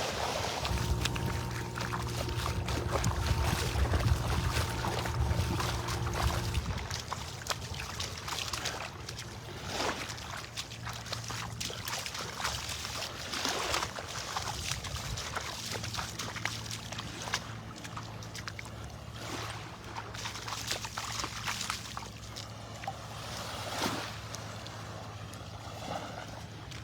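A boat engine's low steady drone, fading out a few seconds in and returning about halfway through, over water lapping and sloshing at the shore.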